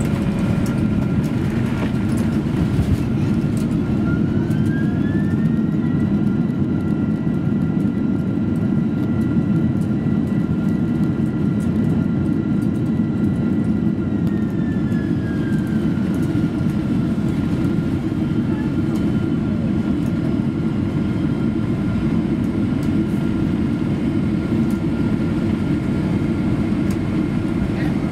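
Cabin noise of a Boeing 767-300 rolling along the runway after landing: a steady low rumble with a thin whine, and an engine whine that rises about four seconds in, holds for about ten seconds, then falls away.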